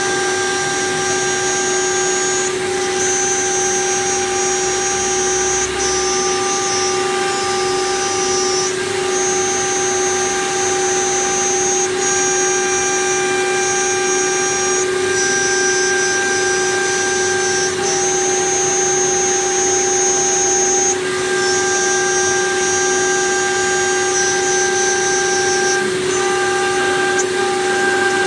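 CNC knife-cutting plotter cutting 12 mm foam PVC board: a steady machine hum runs throughout, with a high-pitched motor whine that starts and stops every few seconds as the cutting head moves from one stroke of the cut to the next.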